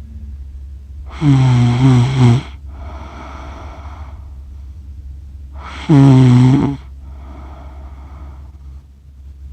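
A sleeping person snoring. There are two loud, pitched snores, about a second in and about six seconds in, and each is followed by a quieter, breathy breath.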